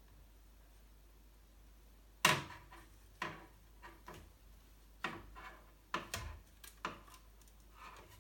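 Irregular knocks and clacks of a Malyan M180 3D printer's build plate being pushed and rocked by hand, about eight of them starting some two seconds in, the first the loudest. The plate is loose, with a lot of wiggle in its mount.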